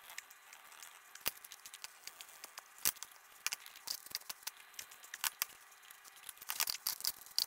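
Mason's trowel scraping wet mortar out of a bucket and stone veneer pieces being set in mortar: scattered short clicks and scrapes, with a sharp knock about a second in and another near three seconds, and a quick run of clicks near the end.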